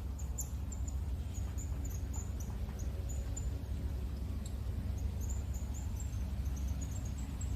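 Insects chirping: short, high-pitched chirps repeated irregularly over a steady low rumble.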